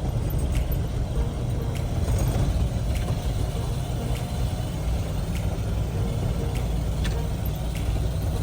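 Old Ford pickup's engine running steadily while it pushes a snow plow: a deep, even rumble, with faint ticks a little more than once a second.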